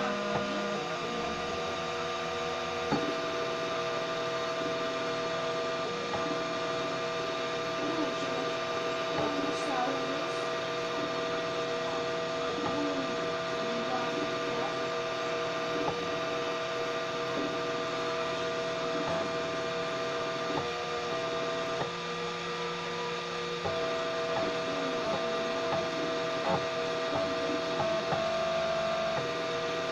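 Homemade 3D printer running a slow print: its stepper motors give a steady hum and whine made of several held tones that shift in pitch now and then as the head changes moves, with faint ticks.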